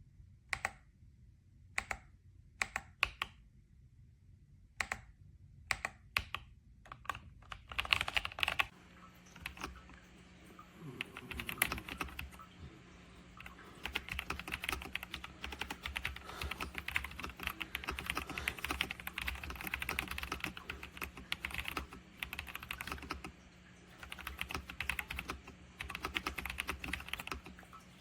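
Typing on an RK Royal Kludge S98 mechanical keyboard with pale green tactile switches and PBT keycaps. It starts with single keystrokes spaced apart, and from about a quarter of the way in becomes fast, continuous typing.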